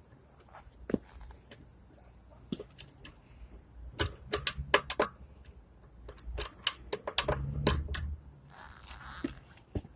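Metal clinks and taps of a lug wrench on a car wheel's lug nuts, in two quick clusters about four and seven seconds in, with a low rumble of handling under them. The wrench is too small for the nuts.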